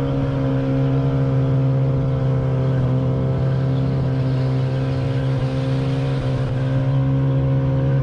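Outboard motor of an inflatable raiding boat running steadily at speed, one unchanging hum, over the rush of wind and splashing water.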